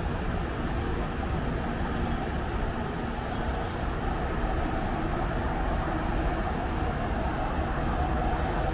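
Steady urban road-traffic noise: a continuous low rumble of car, truck and motorbike engines and tyres, with no single vehicle standing out.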